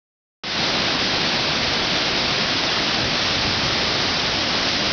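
Mesa Falls on the Henrys Fork, a large waterfall, pouring over its brink: a loud, steady rush of falling water that starts about half a second in.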